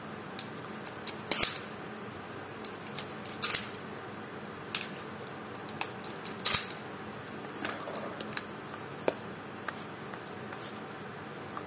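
Metal clicks and clacks of a Derya Carina CMX-100 shotgun being loaded and handled, with three louder clacks about two seconds apart among lighter clicks. No shot is fired.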